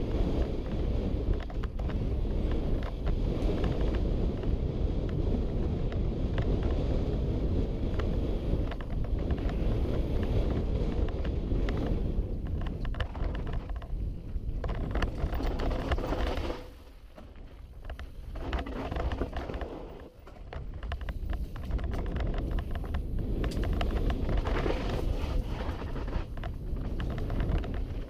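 Wind buffeting a head-mounted action camera's microphone during a fast mountain-bike descent, mixed with the rattle and clatter of the bike and its tyres over a dirt trail. The noise eases off for a few seconds past the middle, then builds again.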